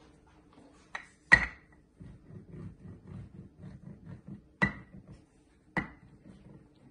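A wooden rolling pin knocks against the rim of a metal fluted tart pan as it is rolled across to trim off the overhanging crust. There are four sharp clinks, each with a brief ring, the loudest about a second in. Between them the pin makes a low, uneven rumble as it rolls over the pan.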